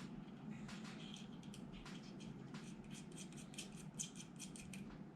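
A throw lever being fitted onto an EOTech Vudu 1-10x28 rifle scope's magnification ring, heard as faint, irregular small clicks and ticks of the parts being handled and worked into place.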